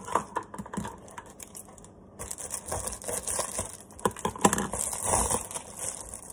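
Plastic padded mailer being torn open along its perforated strip: irregular crinkling, rustling and small tearing clicks of plastic and paper, busier from about four seconds in.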